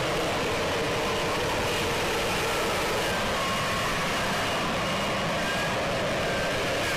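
Aircraft engine running with a steady, even noise and faint high whines that drift slightly in pitch.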